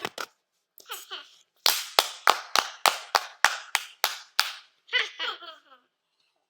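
Mouth-made cartoon sound effects: a run of about ten sharp, laugh-like bursts at roughly three a second, then a short pitched vocal sound near the end.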